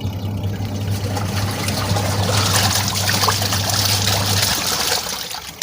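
MarQ 7 kg semi-automatic washing machine agitating a load of clothes in water at the end of its wash timer: a steady motor hum under the churning of water. The hum stops about four and a half seconds in, and the water sound drops away at the very end as the machine switches off.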